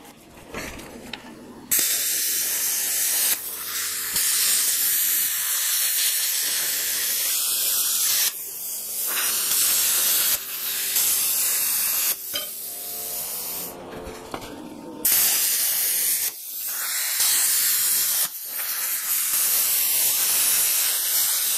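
Plasma cutter cutting through a steel chassis mounting bracket: a loud, steady hiss that starts about two seconds in and cuts out and restarts several times as the torch is triggered on and off.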